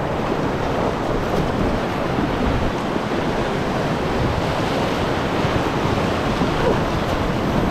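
Rushing whitewater of a river rapid, a steady churning rush heard from aboard an inflatable packraft running through it.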